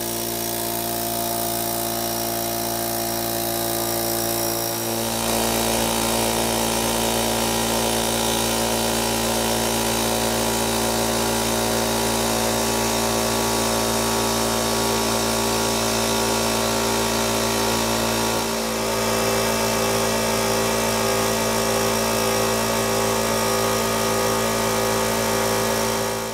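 Electric piston air compressor running steadily, filling its tank as the pressure builds. Its steady hum shifts in tone about five seconds in, and it cuts off suddenly at the very end.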